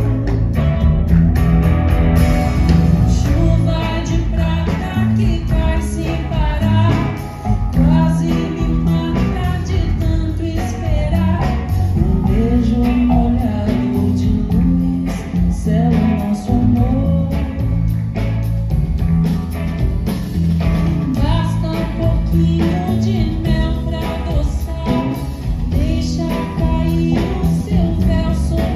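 Live band, with electric guitar and drums, playing a Brazilian pop song, with a singer's voice carrying the melody over it.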